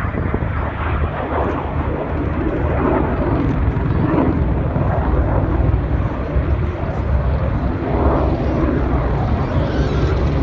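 Helicopter rotors and turbine engines running, a steady loud drone.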